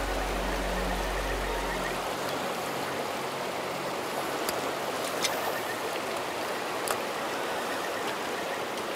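Shallow mountain stream flowing over rocks, a steady rushing hiss of water. A few sharp ticks stand out in the middle.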